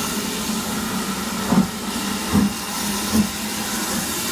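Steam locomotive pulling away slowly: three exhaust chuffs a little under a second apart over a steady hiss and hum.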